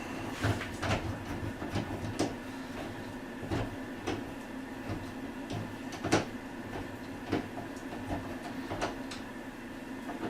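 Irregular small clicks and light knocks of a screwdriver working on metal door-handle hardware as the handle set's mounting screws are tightened.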